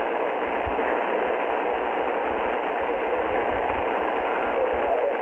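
Steady shortwave static and hiss from an Icom IC-R30 receiver's speaker, tuned to 6.955 MHz in upper sideband, with a weak station's audio barely showing through the noise near the end.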